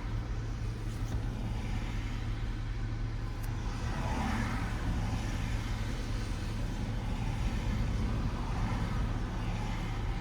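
Car driving on a wet road: a steady low engine and road rumble with tyre hiss, and a brief swell of hiss about four seconds in.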